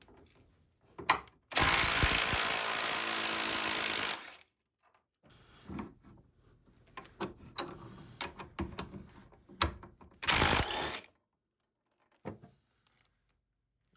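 A power drill runs steadily for about two and a half seconds, then comes a stretch of irregular clicking and rattling, then a second short run of the drill. This is tool work while fitting a bench vise.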